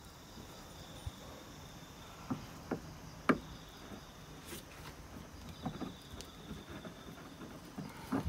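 Light metallic clicks and knocks as a faucet is turned by hand into a standing water post, the sharpest about three seconds in. A faint, high, steady insect trill comes and goes behind them.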